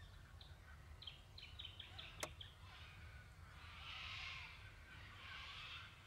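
White-winged choughs foraging, giving faint, harsh hissing rasps, two of them about a second long in the second half. Earlier there is a quick run of short high chirps, and a single sharp click about two seconds in.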